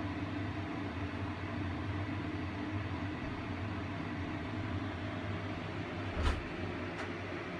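Steady electrical hum at mains frequency and its overtones from a cupboard of three electromechanical rotating-disc kWh meters under load. A single knock comes about six seconds in, with a faint tick about a second later.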